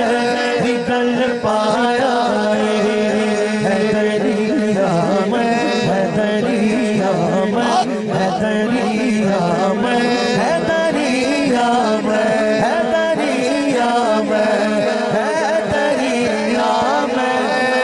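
A man singing a Punjabi naat through a microphone and loudspeakers, in long ornamented vocal lines without breaks, over a steady held tone underneath.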